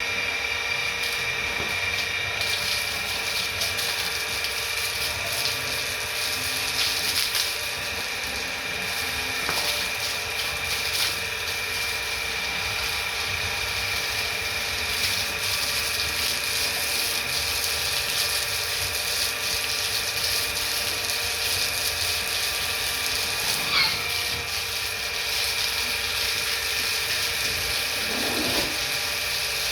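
A steady mechanical drone with a high, unchanging whine, like a machine running continuously. A couple of short sounds that glide up and down break through near the end.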